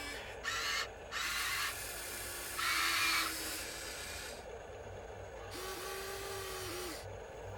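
Small electric motors and gearboxes of a Huina radio-controlled construction model whirring in three short bursts, the last the loudest, followed by a quieter stretch with a faint wavering tone.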